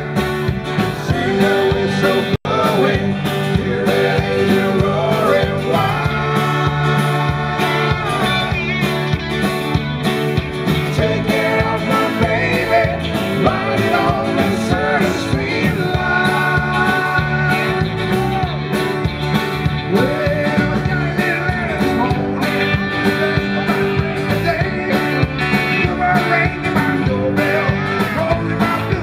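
Live country-rock band playing, with electric guitars, bass, drums and fiddle, and a man singing into the microphone. The sound drops out for an instant about two and a half seconds in.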